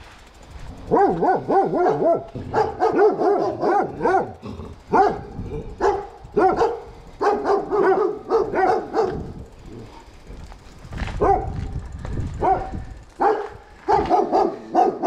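A dog barking and yelping repeatedly in short bouts, pausing briefly about two-thirds of the way through before starting again.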